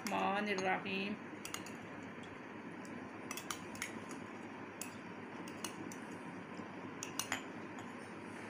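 Light, irregular clinks and taps against a glass tumbler, about nine in all, as cubes of red jelly are added to it, over a faint steady hiss.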